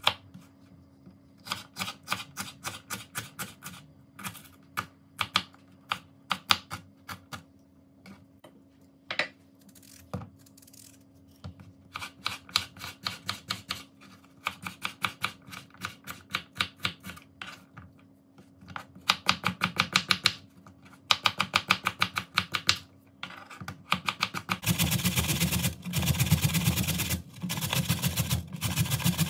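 A chef's knife chopping quickly on a wooden cutting board, dicing peppers and a potato, in runs of rapid taps with short pauses. Near the end, a carrot is grated on a box grater: a continuous rasping scrape, louder than the chopping.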